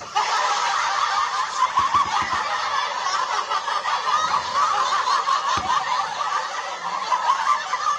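Laughter sound effect: a dense, continuous stretch of laughing that starts abruptly and runs without a break.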